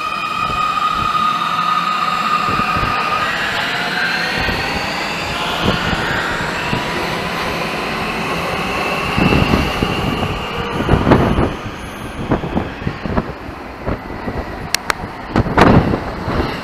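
Munich U-Bahn subway train pulling out of an underground station: the electric drive whines in several tones that glide upward in pitch as it accelerates, then the wheels clatter and knock over the rail joints as the last cars pass. Sharp knocks come again near the end.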